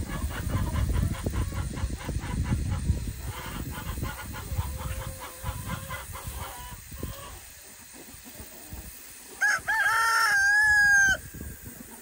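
A rooster crows once near the end, a couple of short hooked notes running into a long held note. Before it, low rumbling noise fills the first few seconds.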